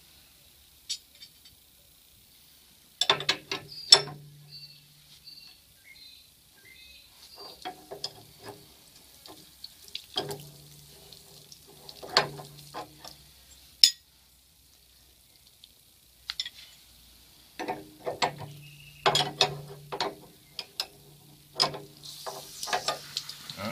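Spanners working a brass pipe fitting as it is loosened to bleed air from the system: bursts of metallic clicking and ratcheting, with pauses between them.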